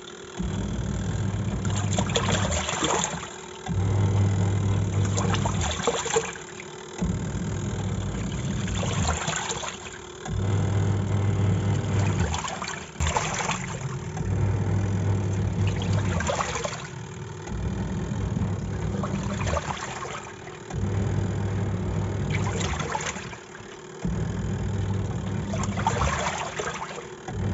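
Semi-automatic top-load washing machine in its wash cycle: the motor hums and the pulsator churns the water and clothes. It runs for a few seconds at a time, stopping briefly and starting again as it reverses direction.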